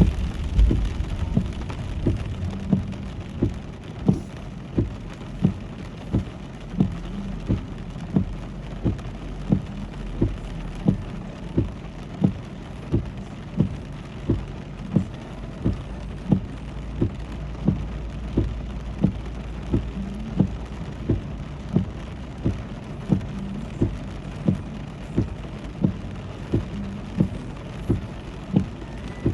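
Steady rain and road noise of a car driving in the rain, with a regular low thump about three times every two seconds.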